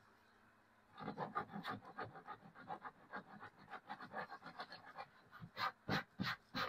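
Coarse sandpaper scraping back and forth over a plastic blow mold in quick short strokes, smoothing down a freshly welded crack. It starts about a second in, with a few longer, louder strokes near the end.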